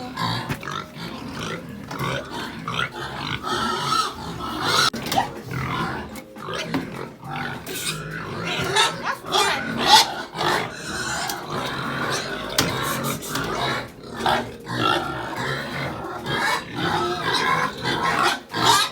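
A pen of pigs squealing and grunting together in a continuous, overlapping din: hungry pigs clamouring at feeding time.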